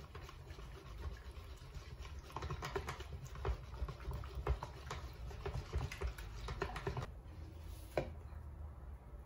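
Wire hand whisk beating a runny egg-and-milk custard mixture in a plastic basin: quick, irregular clicks and taps of the wires against the basin, with one louder knock near the end.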